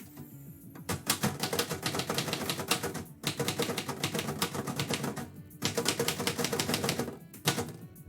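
Typewriter being typed on quickly, with rapid keystrokes in three runs of about two seconds each, separated by brief pauses.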